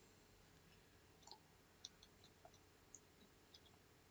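Near silence, with four faint clicks of a computer mouse about half a second apart.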